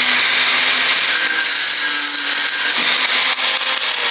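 Power cutting tool running steadily as it cuts through the copper winding of a burnt ceiling fan coil, a continuous high grinding hiss.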